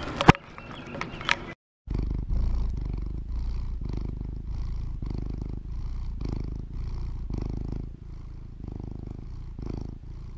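A sharp click over riding noise at first. Then, after a brief silence, a cat purring close up: a steady low purr that swells and fades about every half second.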